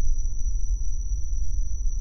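Cinematic ambient drone: a steady, deep rumble with a thin, high-pitched tone held above it.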